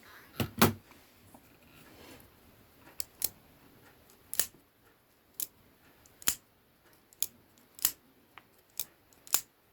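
Ozark Trail folding knife with a shaft lock being opened and closed repeatedly. Its blade and lock give a series of sharp metallic clicks, about one a second, with a quick pair near the start. The action is stiff but loosening up with use.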